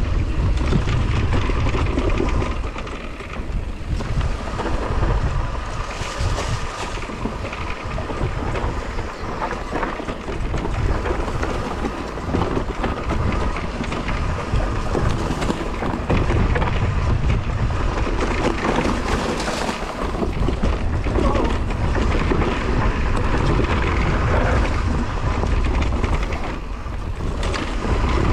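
Riding noise of a Husqvarna electric mountain bike on a rough trail: wind buffeting the camera microphone over the rumble and rattle of the tyres and bike, with a faint steady whine, rising and easing as the pace changes.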